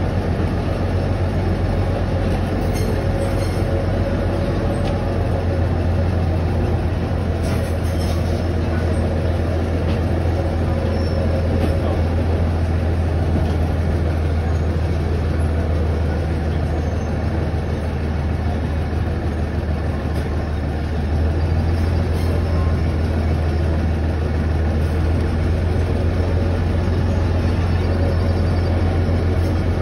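Steady low rumble of a train in motion, heard from aboard a car pulled by a locomotive, with a few faint clicks in the first several seconds.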